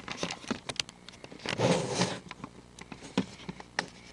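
Handling noise on a camcorder's microphone: scattered clicks and knocks, with a brief rustling swell about a second and a half in.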